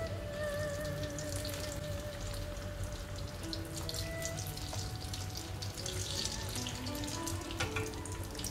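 Taro cake slices deep-frying in hot oil, a steady crackling sizzle, under instrumental background music with held, wavering melody notes.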